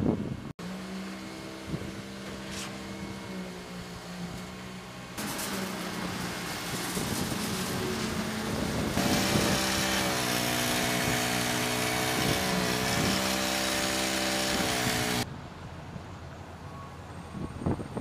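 Machinery running at a concrete pour, a steady droning hum that grows louder and rushier about halfway through. It cuts off abruptly a few seconds before the end, leaving quieter outdoor noise with wind on the microphone.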